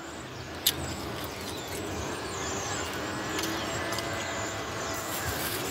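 Steady vehicle noise heard from inside a car, slowly growing a little louder, with a single sharp click under a second in.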